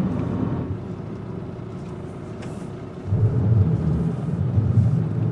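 Low rumble of a Nissan NV200 camper van driving, heard from inside the cabin. About three seconds in it gives way to a louder, uneven low rumble.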